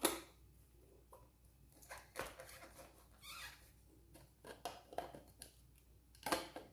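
Irregular clicks, taps and short scrapes of hard plastic parts being handled and fitted together: nozzle attachments going onto a handheld cordless vacuum-blower, which is not running.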